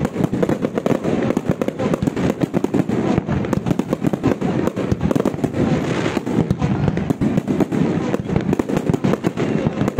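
Fireworks display in full barrage: aerial shells bursting in rapid, overlapping succession, many loud bangs a second without a break.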